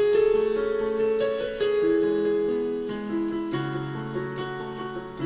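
Background piano music: a melody of held notes.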